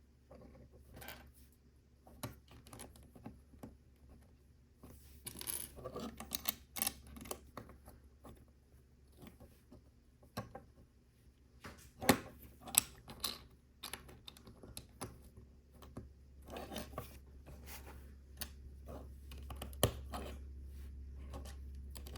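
Small plastic LEGO pieces clicking and clattering as they are picked through and pressed together, with a spell of rattling about five seconds in and a few sharper clicks later.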